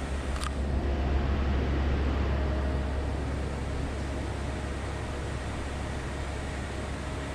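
Steady low rumble with a hiss over it, the background noise of an indoor room, with one brief sharp click about half a second in.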